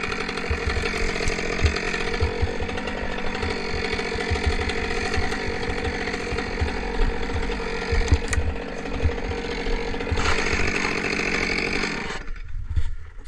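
Chainsaw running at full throttle and cutting wood, steady under load with irregular low knocks, then let off to a much quieter idle about a second before the end.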